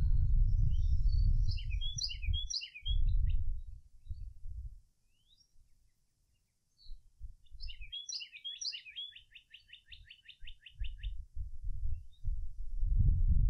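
Birds chirping: two clusters of quick high chirps, the second running into a fast, even trill of about ten notes a second. Beneath them, a louder low rumbling noise comes and goes, dropping out to near silence for about two seconds in the middle.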